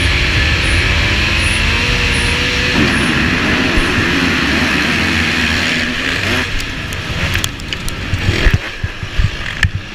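Onboard sound of a Honda four-stroke motocross bike accelerating flat out off the supercross start, the engine and rushing air mixed with the bikes of the pack alongside. From about six seconds in the steady engine note breaks up into uneven surges with several sharp knocks as the pack funnels into the first turn.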